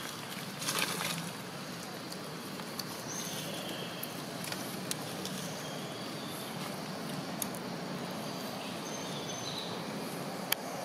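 Outdoor ambience: steady background noise with a few short high chirps, and a brief rustle of dry leaves about a second in as a young macaque walks over them. A single sharp click comes near the end.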